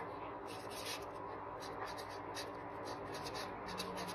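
Felt-tip marker pen writing on paper: a string of short, irregular strokes as words are written out.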